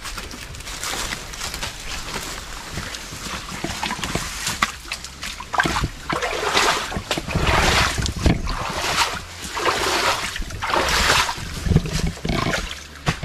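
Stream water splashing and sloshing in a run of irregular bursts, busiest from about halfway through, as water is scooped and thrown out of a pool that is being drained.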